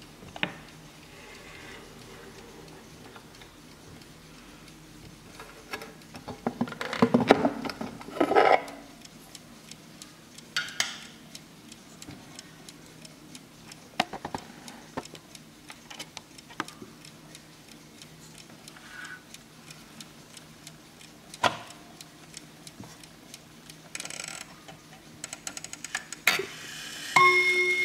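Mechanical Hermle 130-020 mantel clock movement ticking steadily, with louder knocks and rubbing from the wooden case being handled about six to nine seconds in. Near the end the chime starts: hammers strike the gong rods and they ring on with several pitches.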